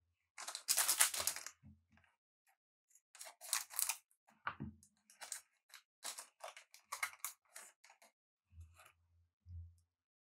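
A foil trading-card booster pack being opened, its wrapper crinkling loudest from about half a second to a second and a half in. Then come shorter rustles as the cards are slid out and handled, and two soft low thumps near the end.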